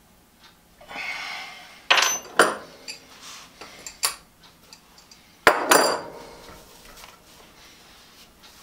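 Metal parts clinking and knocking as a motor arbor and its abrasive wheel are handled and tightened on the shaft of an electric motor that is not running. A scraping rustle comes about a second in, then sharp clinks around two seconds and four seconds, and a louder cluster of knocks about halfway through.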